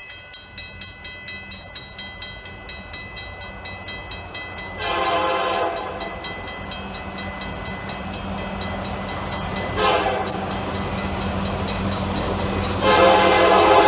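Railroad crossing bell ringing at about three strikes a second as an approaching diesel locomotive sounds its air horn: a blast about five seconds in, a short toot near ten seconds, and a long blast starting near the end. A low rumble from the train grows steadily louder throughout.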